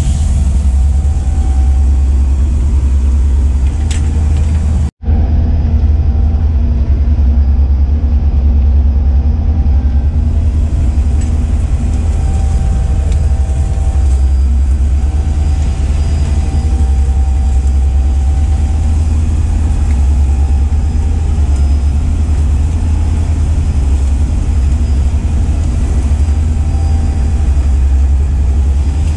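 Boat engine running steadily, a loud low drone heard from inside the cabin, with a brief break about five seconds in.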